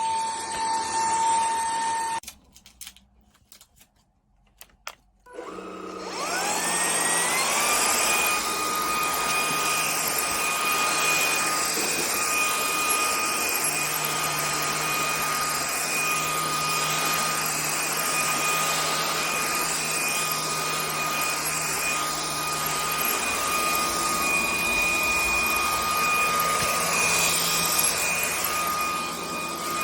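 GOLDEGGS 550W cordless stick vacuum cleaner's motor running, then switched off about two seconds in, with a few clicks. About three seconds later it is switched back on: its whine rises quickly to speed and then runs steadily.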